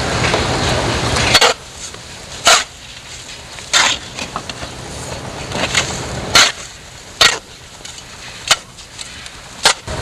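Snow shovel scraping and chopping into packed snow in a series of short, sharp strokes, one every second or so. It follows a steady background rush that cuts off about a second and a half in.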